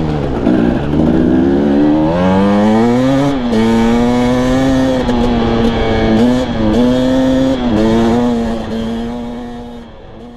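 Husqvarna TE250i two-stroke dirt bike engine heard from the rider's seat with wind noise, revving up with a rising pitch over the first few seconds, then holding a steady pitch with a few brief dips. The sound fades out near the end.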